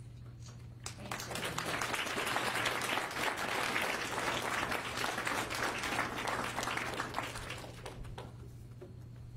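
Audience applauding: the clapping starts about a second in, swells, and dies away near the end.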